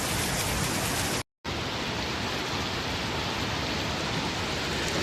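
Steady rushing water noise, typical of floodwater or heavy rain. It breaks off into a brief silence just over a second in, then carries on from a different recording.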